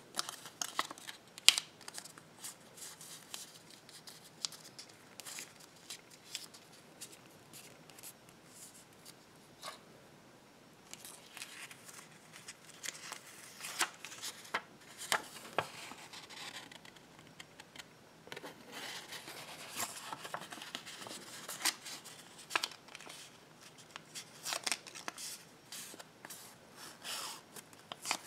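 Folded slips of thin paper being unfolded and handled by fingers: a run of crisp, irregular paper rustles and crackles.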